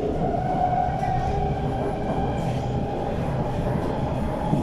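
SMRT C151 metro train running on elevated track, heard from inside the car: a steady rumble of wheels on rail with a whine holding at one pitch, and a fainter higher tone that creeps upward about a second in.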